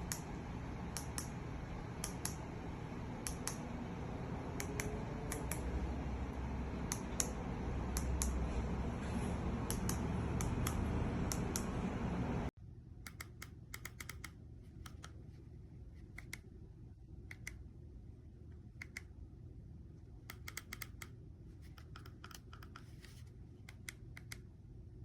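Irregular light clicks, one or two a second and sometimes in quick pairs, over a steady background hiss. The background drops sharply about halfway through while the clicks go on.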